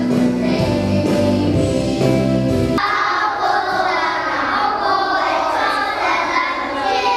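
Children singing a Christian song with recorded backing music; about three seconds in the backing music cuts off abruptly and a children's choir sings on alone.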